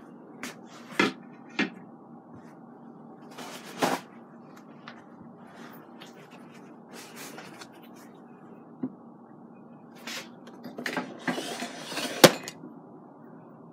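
Kitchen handling noises: scattered knocks and clatters of things being moved and set down. They grow busier near the end, with the loudest knock shortly before it ends.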